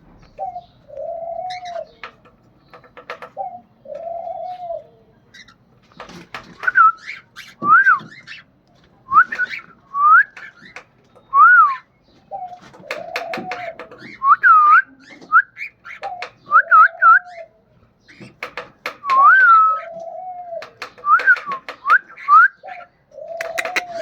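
Male cockatiel calling in breeding season: short whistled notes that swoop up and down, mixed with repeated low hooting notes and clicking chatter.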